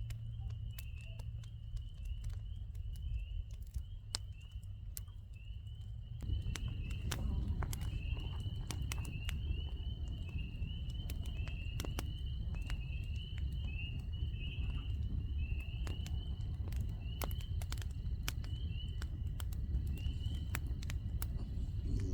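Night insects chirping in a steady, fast, high-pitched repeated pattern, with scattered footsteps and clicks. A low rumble comes in about six seconds in.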